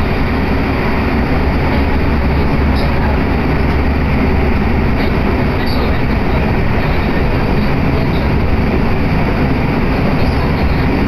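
Inside a JR Kobe Line commuter train running along the line: a steady, loud rumble of wheels and motors.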